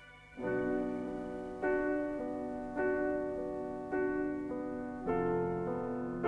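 Slow, gentle piano music: soft chords struck about once a second, each left to fade before the next.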